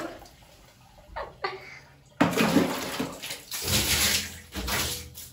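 Bath water splashing in a tub or basin as someone soaks and moves in it, a few faint splashes first, then a run of louder, uneven sloshing surges from about two seconds in.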